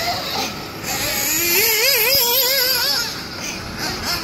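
Nitro RC truggy engine (a fully ported O.S. Speed Spec 2 with a tuned pipe) revving as the car drives the track. About a second in, the pitch climbs, then rises and falls in quick throttle blips before it fades back.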